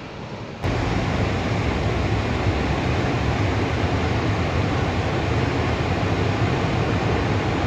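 Steady rushing roar of the Gori river in flood, running high and muddy with debris, heavy in the low end. It jumps sharply louder about half a second in, then holds steady.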